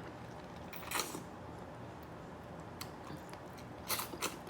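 Close-up eating sounds of shell-on shrimp being chewed: a few short, sharp chewing clicks, one about a second in and a small cluster near the end.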